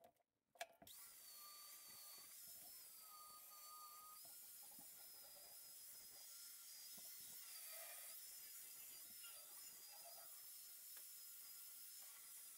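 Faint, high-pitched, steady whine of an air die grinder running at speed, elongating a bolt hole in a truck bed mount; it starts about a second in.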